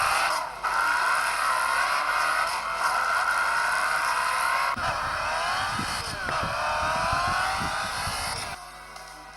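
Cartoon car sound effects: a sustained tyre screech, several squealing tones sliding up and down in pitch at once, with low rumbling thumps partway through, fading out near the end.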